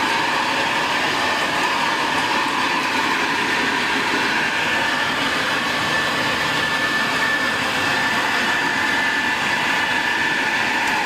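Hoover Convertible model 1070 upright vacuum cleaner running steadily: a high motor whine over a steady rushing of air.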